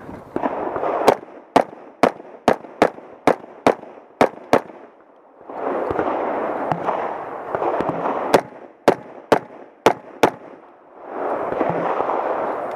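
Rifle shots from an AR-15 carbine in .300 Blackout firing 150-grain rounds: a quick string of about nine shots roughly half a second apart, a pause filled with rustling noise while moving between positions, then about five more shots at the same pace.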